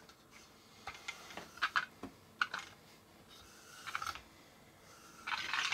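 Quiet scattered plastic clicks and scrapes from a vintage Whitman Sound A Round toy's hand-turned tone arm unit as it is set on the record and pushed around the tray. Near the end a louder, scratchy rattle starts as the needle begins running in the record groove.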